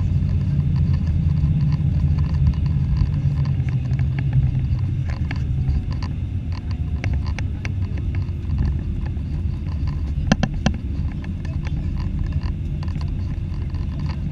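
Cabin noise of an Airbus A318-111 taxiing: a steady low rumble from its CFM56 engines at taxi power and the wheels rolling on the taxiway, with light cabin rattles and two sharp knocks about ten seconds in.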